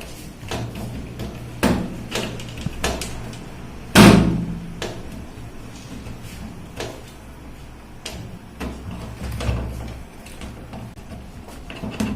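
Scattered clicks and knocks of plastic and metal parts being handled as a new door lock is fitted into a front-loader washing machine, with one loud knock about four seconds in. A low steady hum runs underneath.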